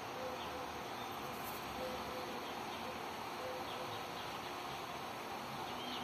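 Outdoor nature ambience from a film soundtrack, played back over speakers in a room: a steady hiss with a faint insect-like buzz that comes and goes, and a few faint high chirps.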